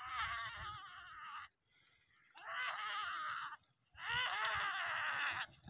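Three long, wavering, high-pitched shouted calls from people, each lasting about a second or more, with short gaps between them.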